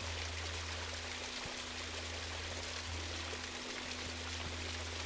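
Small waterfall splashing over rock: a steady rush and patter of falling water, with a low steady hum underneath.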